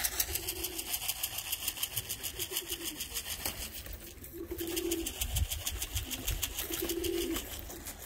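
Domestic pigeons cooing: five low coos, each about half a second long, spaced a second or two apart, over a fast, even high-pitched ticking.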